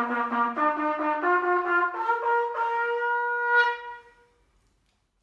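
Trumpet playing a short rising fanfare of four notes, the last one held for about two seconds before it fades out.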